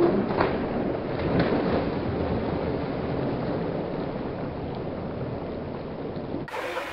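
Pool water splashing and churning as a swimmer tumbles off an inflatable float, mixed with wind noise on the microphone. It is loudest at the start with a few sharp splashes in the first second or so, then dies down gradually, and the sound changes abruptly near the end.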